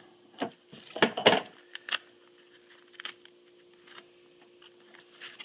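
Paper envelope being handled and opened on a tabletop: a run of short crackles, rustles and light knocks, loudest about a second in.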